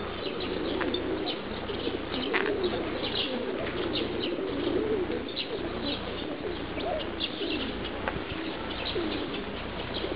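Many pigeons cooing over one another without a break, with short high chirps of small birds scattered through.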